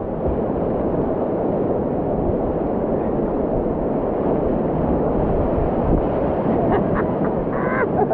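Whitewater rapids in a river gorge: a steady, loud rushing roar of fast water.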